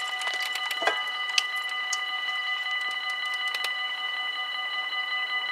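Dutch level-crossing warning bells ringing continuously in a steady, many-toned ring, the signal that a train is approaching and the barriers are down. A sharp tick stands out about a second and a half in.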